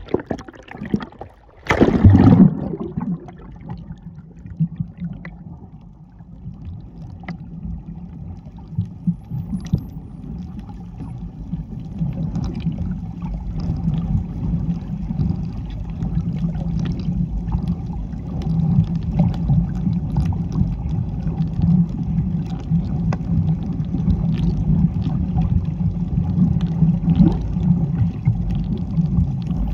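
A splash as the camera goes under the sea surface about two seconds in, then a steady low underwater rumble with a hum in it that grows a little louder later on. Faint scattered ticks sound over it.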